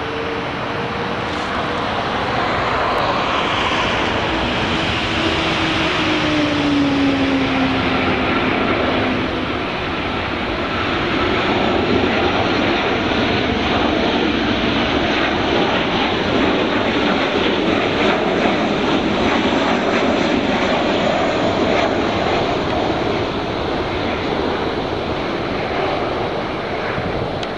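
Boeing 737-600 on landing approach with its landing gear down, its CFM56 turbofan engines flying past: a steady rushing engine noise, with a whine that falls in pitch a few seconds in as the jet passes.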